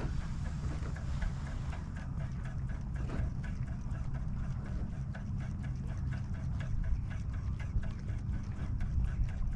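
Spinning reel being cranked to retrieve a topwater lure, ticking about three to four times a second, over a steady low rumble.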